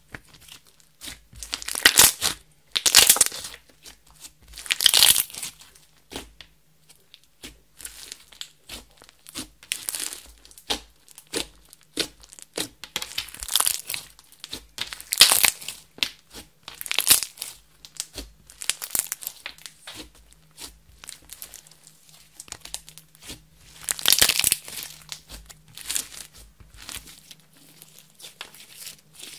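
Thick red slime being stretched, pressed and folded by hand, giving an irregular sticky crackling, with several louder bursts as it is pulled apart.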